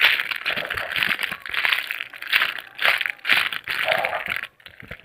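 Crinkling and rustling from a soft foam squishy toy being handled and squeezed close to the microphone, in irregular bursts that stop shortly before the end.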